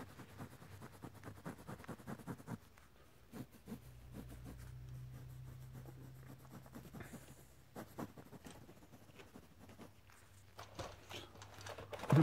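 Fingers scratching and rubbing on a pillowcase, a quick run of small scratches at first, then sparser scratches, with a low steady hum for a few seconds in the middle.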